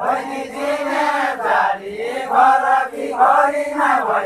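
Men's voices singing a Deuda folk song together in a chanted melody, in long rising and falling phrases with no instruments.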